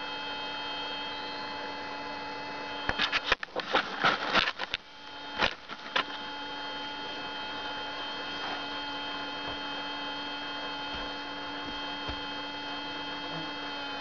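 Koshchei 25K deep-seeking metal detector sounding a steady low signal tone, its response to a stainless steel plate in the soil. About three seconds in, a cluster of knocks and rustling handling noises cuts across it for a few seconds, then the tone resumes.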